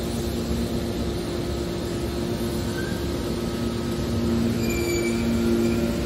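Hydraulic pump unit of a Y81T scrap metal baler running with a steady hum, with a few brief high-pitched squeals about three and five seconds in.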